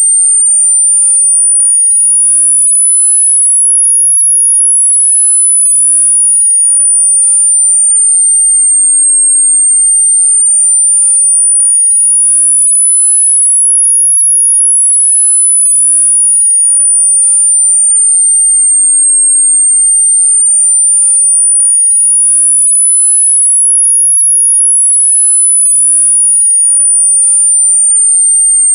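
Loud, very high-pitched electronic sine tone gliding smoothly up and down, one full rise and fall about every ten seconds: a variable-sweep tinnitus masking sound.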